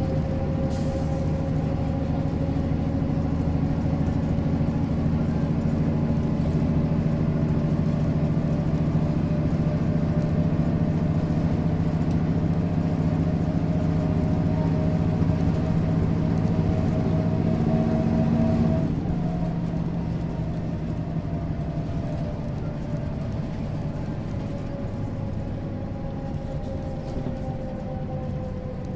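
Mercedes-Benz O405 city bus's inline-six diesel engine running under load, its pitch slowly rising. About two-thirds of the way through, the engine eases off and gets quieter, and its pitch then sinks slowly.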